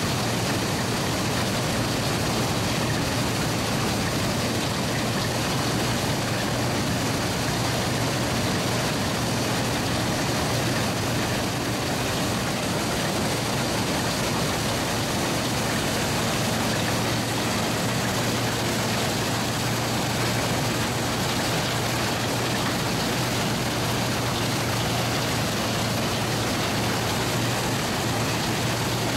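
Vintage Allis-Chalmers self-propelled combine running steadily while cutting and threshing standing grain. A constant low engine hum sits under a dense, even noise from the machine.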